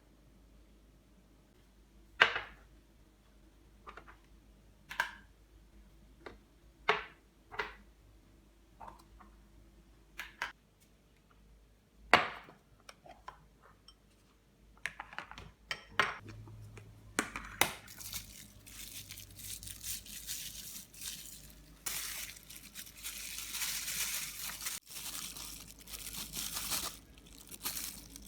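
Kitchen preparation sounds: a series of separate knocks and clinks of dishes and utensils being set down, then, from about two-thirds of the way in, a longer stretch of crinkling and rustling.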